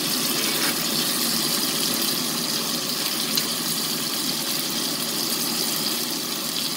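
Butter foaming and sizzling steadily in a cast-iron skillet around a bone-in steak, garlic cloves and rosemary as they pan-fry.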